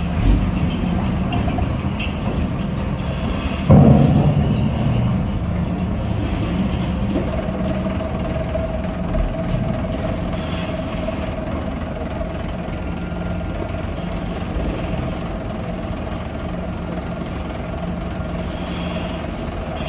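Heavy truck engine running steadily, with a sudden louder surge about four seconds in. A steady whine joins about seven seconds in.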